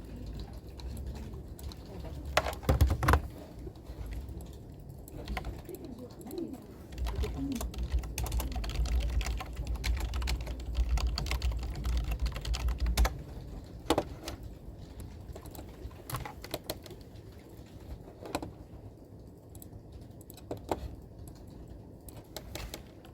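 Typing on a computer keyboard: irregular, scattered key clicks. A low rumble runs underneath from about seven to thirteen seconds in.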